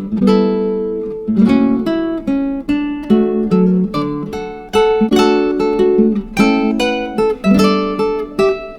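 Background music: acoustic guitar playing plucked and strummed notes, each struck note dying away.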